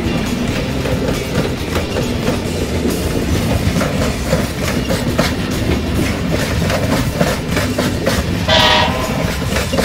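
Alaska Railroad passenger cars rolling past, the wheels rumbling and clicking over the rail joints. Near the end comes a short blast of the train horn from the distant locomotive.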